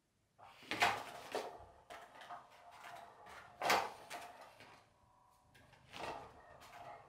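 Nylon fabric skirt of a Cat's Meow motorized cat toy rustling and scraping in several sharp bursts as a cat paws and pounces at it, over a faint steady whir of the toy's motor.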